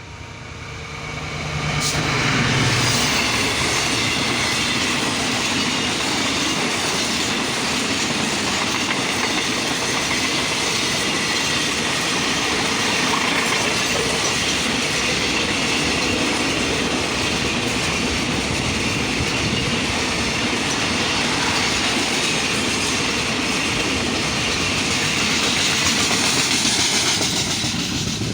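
Freight train passing close by: its sound builds over the first two seconds, with a low diesel locomotive engine hum at the start, then gives way to a long, steady rumble and clatter of the wagons' wheels on the rails, easing off near the end.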